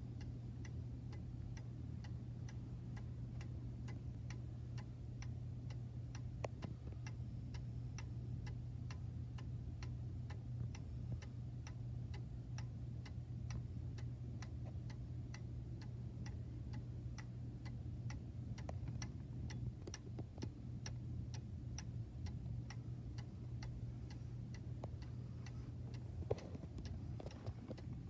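Vintage German cuckoo clock's mechanical movement ticking with quick, even ticks.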